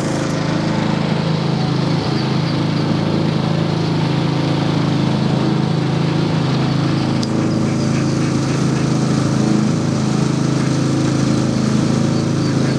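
A small engine, like a lawn mower's, running steadily throughout, with faint high peeps from ducklings over it and a single sharp click about seven seconds in.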